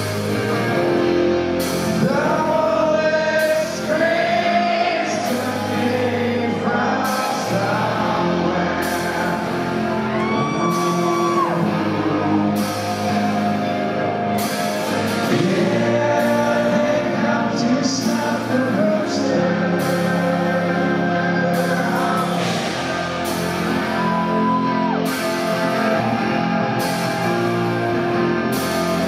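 Live rock band playing: a male lead singer sings over electric guitars, with drums keeping a steady beat of about one strike a second.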